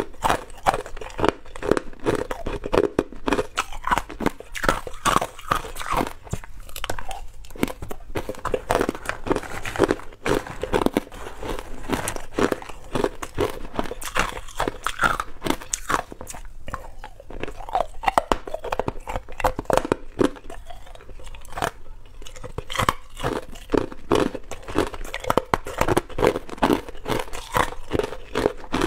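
Hard ice cubes bitten and crunched in the mouth, picked up close by a clip-on microphone: a continuous, irregular run of sharp cracks and crunches.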